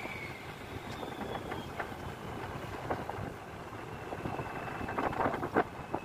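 Wind and sea noise on an open fishing boat, with scattered knocks and rustles as a wet nylon net is hauled in by hand over the side. The knocks cluster a little before the end.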